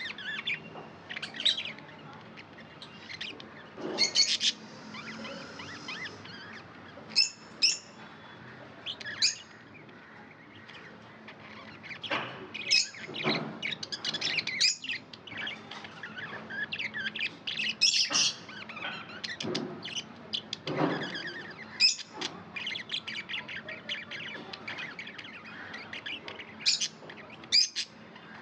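Pet budgies (budgerigars) chirping: quick runs of short high chirps, with louder calls scattered throughout.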